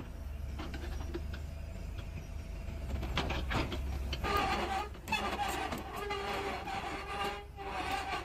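Doosan DX60-9C 6-ton mini excavator running its diesel engine with a steady low hum while the hydraulics move the boom and arm. From about three seconds in there are some clanks and a hydraulic whine that grows stronger toward the end.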